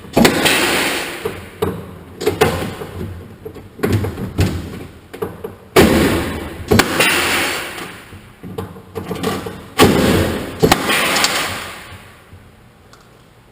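Loud workshop knocks and clanks of metal parts on a truck cab, with three longer noisy bursts that start sharply and fade over a second or two: one at the start, one about six seconds in and one about ten seconds in. It goes quiet about twelve seconds in.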